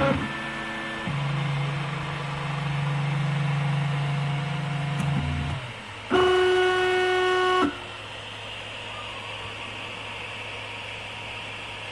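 RepRap MendelMax 3D printer's stepper motors singing steady pitched tones as the print head moves, the pitch changing with each move. A louder, higher tone lasts about a second and a half from about six seconds in, then it cuts off and only a steady low hum and hiss are left.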